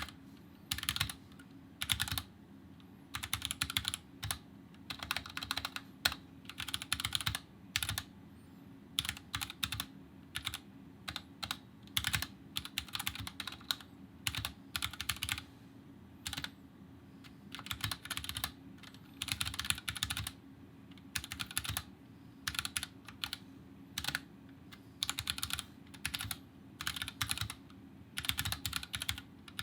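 Typing on a stock Kemove DK61 Snowfox 60% mechanical keyboard with Gateron red linear switches and double-shot ABS keycaps: irregular runs of key clacks in short bursts with brief pauses between them.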